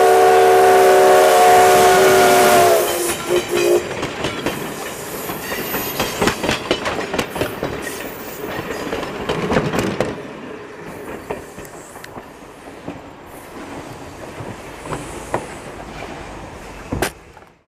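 Canadian Pacific 136, a 4-4-0 steam locomotive, sounding its chime whistle with several tones held together, cutting off about three seconds in. Then the wheels of the passing coaches clatter over the rail joints, fading as the train moves away.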